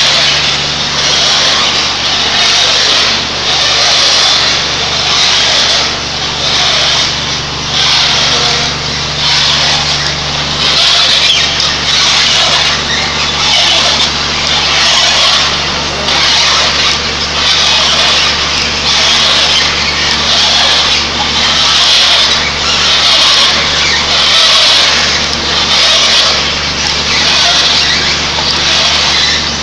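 One-ton-per-hour soybean extruder running under load: a steady low motor hum under a loud, harsh grinding noise from the screw barrel that swells and fades about once a second.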